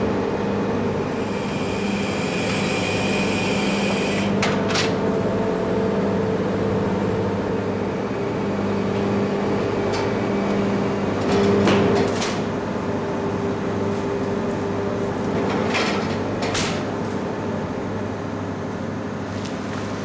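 Steady drone of a fishing boat's onboard machinery with a held hum, which drops away about twelve seconds in. Sharp knocks and clatters come through it about five times.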